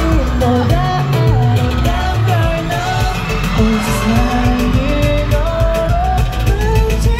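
K-pop song with male group vocals over a steady bass beat, played loud through a concert sound system.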